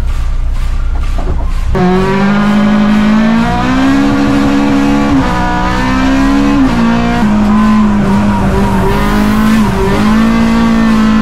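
Music briefly, then the Honda Civic Type R (EP3) race car's four-cylinder engine heard from inside the cabin, pulling hard up through the revs and dropping in pitch at each upshift, several gear changes in a row.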